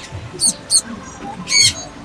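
Zebra finches calling: two short high calls, then a longer, louder one about one and a half seconds in.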